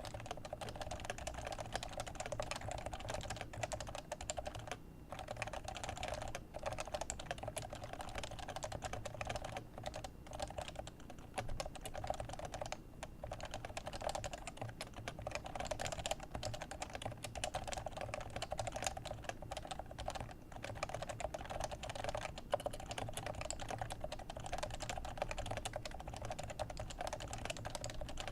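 Steady fast typing on a Leopold FC660c keyboard with Topre 45g electrocapacitive switches: a dense run of soft, rounded keystrokes with brief pauses now and then.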